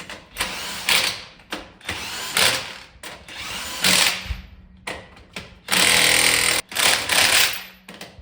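A power tool run in repeated short bursts, about eight of them with short gaps between, over a faint steady low hum.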